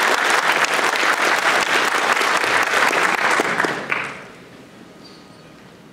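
Audience applauding after a conference talk; the clapping is loud, then dies away about four seconds in.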